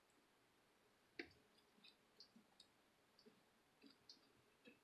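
Faint, scattered soft clicks and ticks of a foam brush dabbing wet liquid latex onto cotton, the sharpest about a second in, over near-silent room tone.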